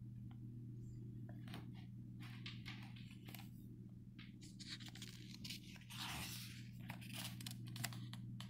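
A paper picture book being handled and its page turned: soft paper rustles and scrapes, with a longer swish about six seconds in. A steady low hum runs underneath.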